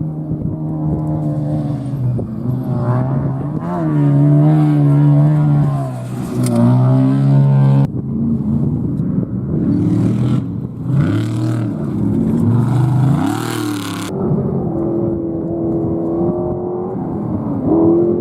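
Off-road race vehicle engines revving, their pitch rising and falling again and again. The sound changes abruptly about eight seconds in and again about six seconds later, as one clip cuts to the next.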